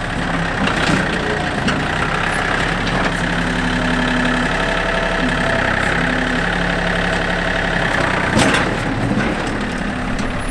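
John Deere compact tractor's diesel engine running as the front loader digs against a stubborn stump, with a steady higher whine over the engine. One sharp knock sounds about eight seconds in.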